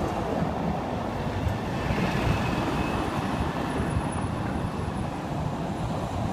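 City street noise: a steady low rumble of car traffic on cobblestones.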